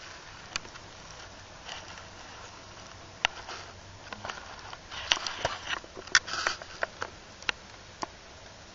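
Irregular sharp clicks and taps over a faint steady hiss: a few scattered ones, then a quick cluster about five seconds in.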